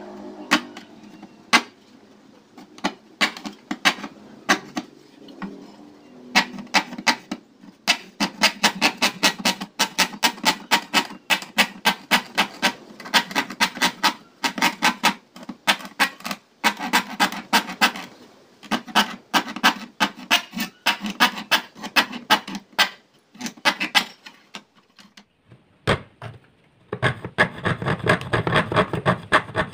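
Hand fret saw cutting a thin white sheet, rapid back-and-forth strokes about four or five a second after a few slower starting strokes. The sawing stops briefly about 24 seconds in, then resumes.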